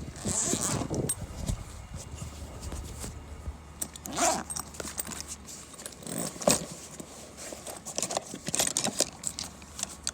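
Scattered metallic clicks, clinks and rattles of tools and hardware being handled at an air-conditioner condensing unit, over a low steady hum from the unit that dies away about halfway through.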